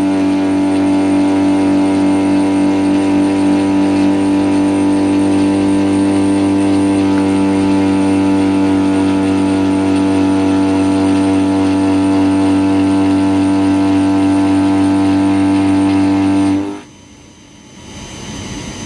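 Carbide end mill on a PM25 CNC mill roughing 4340 steel: a loud, steady pitched hum with a ring of overtones, held evenly through a long side cut. It drops off abruptly near the end as the cut finishes.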